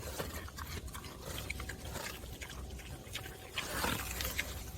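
Kunekune pigs chomping and smacking on pumpkin: a run of short, wet crunching clicks, with grunts.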